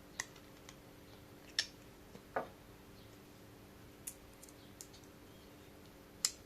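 A few light, scattered clicks and taps of small 5x10x3 ball bearings being pressed into a 3D-printed plastic frame, over a faint steady hum.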